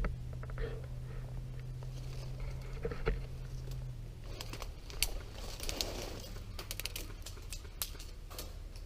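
Rustling with scattered sharp clicks, over a low steady hum that stops about four seconds in.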